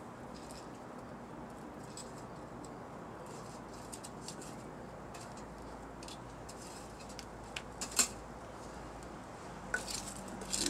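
Wood fire burning in a stove made from a semi-truck oil filter: a steady rush under scattered crackles and pops. One sharp pop comes about eight seconds in, and a flurry of sharper clicks comes near the end.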